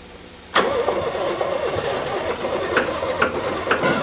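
Starter cranking the explosion-proof tugger's engine. It cuts in suddenly about half a second in, with a regular beat of about two a second.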